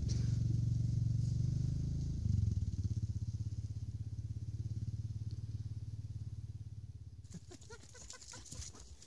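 Motorcycle engine running and pulling away, fading steadily with distance after a brief rise about two seconds in. Near the end it gives way to a few faint clicks and rustles.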